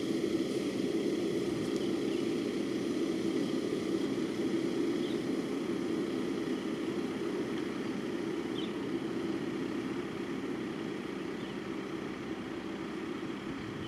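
A steady low engine rumble that slowly fades, with a few faint high chirps over it.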